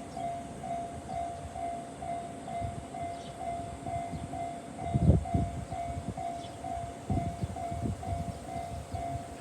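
Japanese level-crossing warning bell ringing in an even, steady beat of about two and a half strokes a second, over the low rumble of a passing train. Heavy thuds of the wheels crossing rail joints come about halfway through and again several times after.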